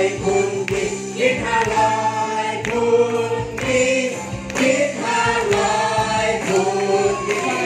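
A group of voices singing a birthday song over backing music, with hands clapping along.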